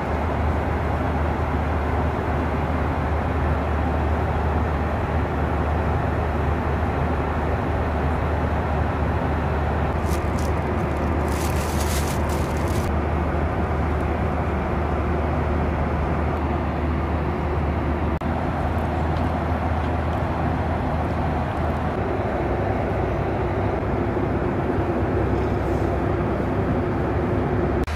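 Steady cabin noise of a Boeing 737-800 in flight: a constant low drone with a rushing hiss above it. A brief crackle of handling noise about ten to thirteen seconds in.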